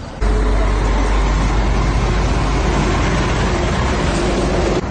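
Road traffic passing close on a highway, a lorry among it: a loud, steady rumble that starts suddenly just after the beginning.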